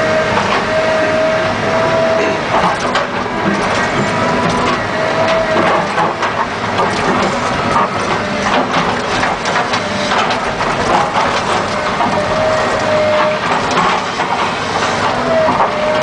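John Deere 690 excavator running, heard from inside the cab, as its bucket digs and scrapes through clay and gravel with a steady crunching and scraping. A thin whine comes and goes several times.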